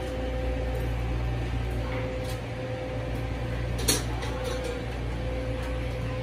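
Steady low machine hum with a faint steady whine above it, and a few light clicks, the loudest a sharp click about four seconds in.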